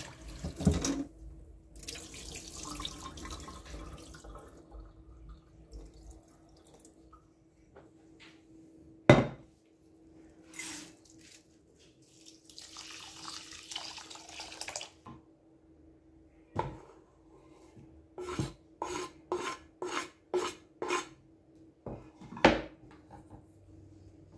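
Water poured from a kettle into a glass bowl of rice for a few seconds, among scattered knocks and a quick run of about seven sharp clinks near the end. A faint steady hum runs underneath.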